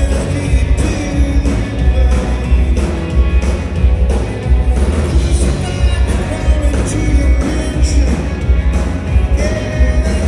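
Live rock band playing loud: drums keeping a steady beat under electric guitars and bass guitar.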